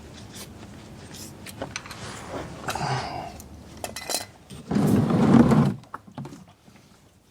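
Metal clinks and handling noises from tools and the oil filter being worked off under a vehicle during an oil change. A louder clatter comes about five seconds in.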